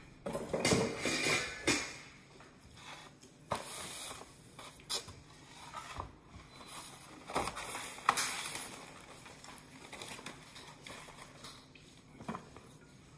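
Kitchen handling sounds: scattered knocks and clatters as things are taken from a cupboard and set down on a wooden cutting board, busiest in the first couple of seconds, with a last knock near the end as an egg carton is put on the board.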